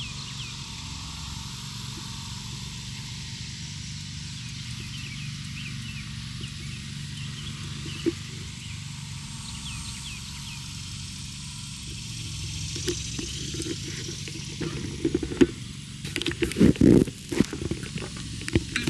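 Outdoor ambience with a steady low rumble and faint bird chirps. In the last few seconds there is a close flurry of rustling and crackling vegetation as watermelon-patch weeds are pulled by hand.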